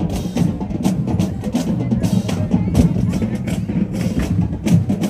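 Marching band drumline playing a cadence: bass drums and snare drums struck in quick succession.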